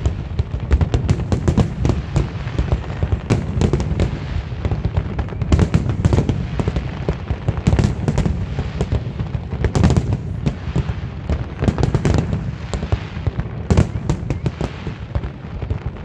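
Aerial fireworks display: a dense barrage of shell bursts, sharp bangs and cracks following one another with no pause over a continuous low rumble.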